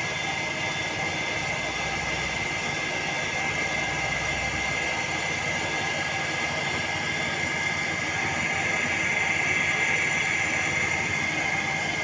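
Petrol-engined walk-behind concrete floor saw running steadily while its water-fed blade cuts a concrete floor, a steady high tone over the engine noise that gets louder near the end.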